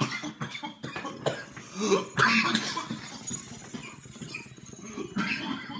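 A man coughing in repeated fits after inhaling a dab of cannabis wax, with the strongest bout about two seconds in and another near the end.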